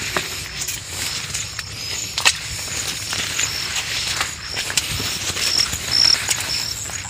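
Leafy branches and bushes rustling, brushing and crackling as someone pushes through dense undergrowth on foot. A high, short chirp repeats about twice a second in the background from about three seconds in.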